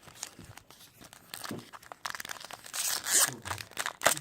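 Trading-card pack wrapper and cards being handled, with crinkling and tearing rustles that grow louder about halfway through.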